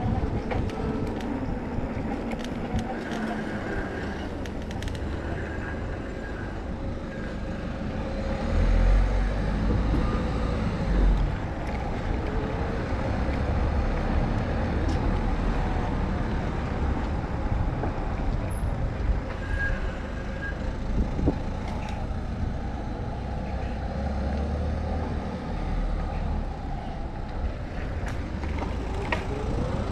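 Road traffic noise heard from a moving bicycle, with a low wind rumble on the microphone that swells twice.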